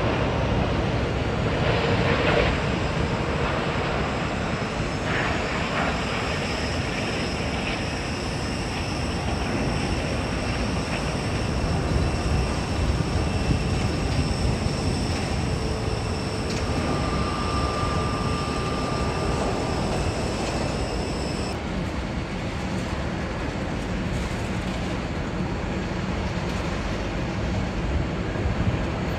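Jet airliner engines on landing approach: a steady low rumble with a thin high whine above it. The whine stops abruptly about two-thirds of the way through.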